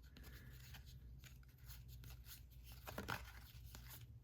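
Faint clicks and slides of baseball trading cards being flipped through by hand, over a low steady hum.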